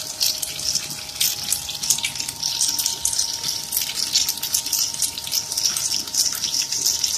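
Corn-curl snack extruder running while curls come out of the die: a continuous, unevenly crackling hiss over a faint steady machine whine.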